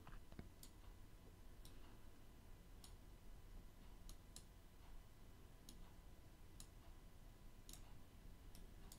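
Faint computer mouse clicks, about ten, irregularly spaced, over a low steady background hum, close to near silence.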